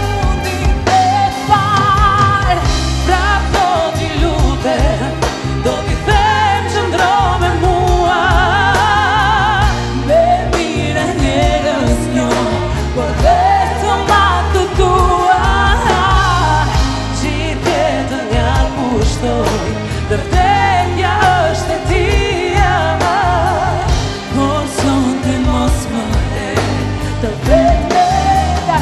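Two women singing a duet in Albanian over a live band, with backing singers.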